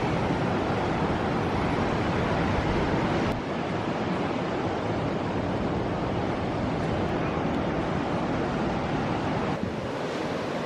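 Ocean surf washing on the beach, with wind blowing across the microphone: a steady rush of noise that drops a little about three seconds in.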